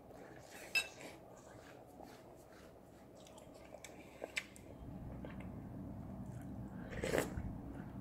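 A metal spoon clinking against a ceramic soup bowl. There is a sharp ringing clink about a second in, a couple of lighter clicks around four seconds, and a louder clink near the end as the spoon goes into the soup.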